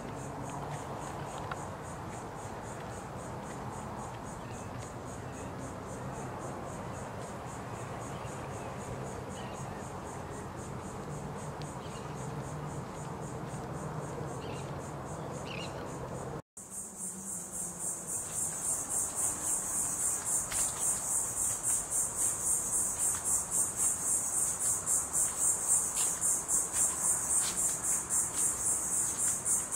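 Insects singing in a shrill, high chorus that pulses a few times a second. It is faint over a steady low rumble for the first half, then loud and growing louder after a cut about halfway in.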